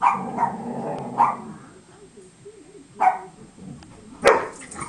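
Dog barking in play, about five short, sharp barks spread unevenly, the loudest one near the end.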